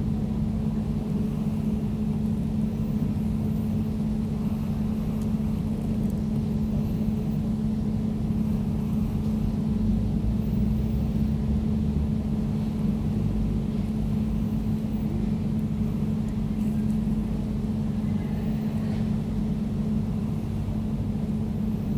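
Air conditioner running steadily: a constant hum with a strong low tone, a fainter tone above it, and a low rumble underneath.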